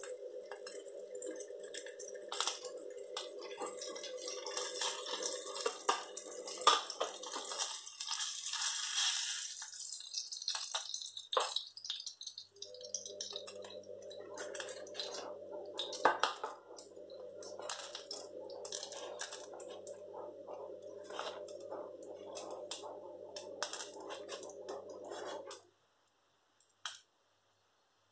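Kitchen utensils clinking and scraping against a frying pan and plate as pan-fried salmon fillets are lifted out, over a faint sizzle of hot oil. A steady low hum runs underneath and cuts out for a few seconds partway through.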